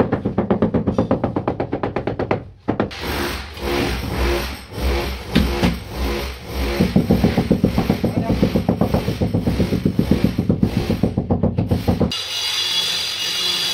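Rapid, even tapping at about five knocks a second, from a wooden hammer handle striking a large ceramic floor tile to bed it level into wet mortar. The tapping pauses briefly a couple of seconds in and stops near the end.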